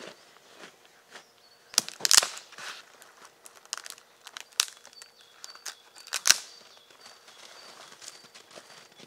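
Rustling and crinkling of gloves, clothing and gear being handled in the snow, with a few sharp clicks and cracks, the loudest about two seconds in and again just after six seconds. Faint short high bird chirps repeat through the second half.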